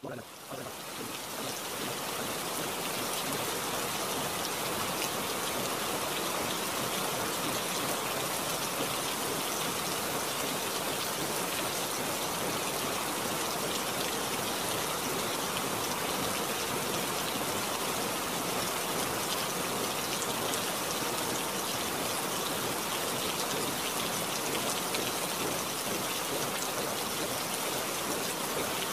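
Steady rain with a fine patter of drops. It fades in over the first couple of seconds and then holds an even level.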